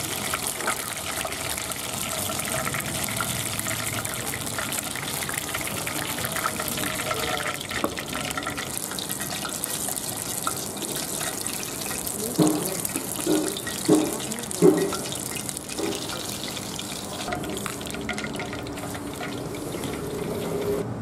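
Battered bull stomach pieces deep-frying in a wok of hot oil: a steady bubbling sizzle, with four short louder sounds about two-thirds of the way through.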